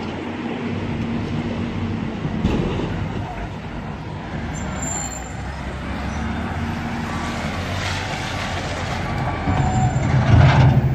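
Heavy diesel machinery working coal: a wheel loader's engine runs steadily with a low hum. It grows louder near the end as the loader pushes its bucket into the coal pile.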